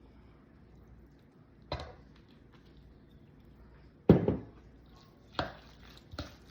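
Four separate knocks of kitchenware, such as a bottle, bowl or spoon, handled on a counter while seasoning and mixing chicken salad. The loudest is a solid clunk about four seconds in.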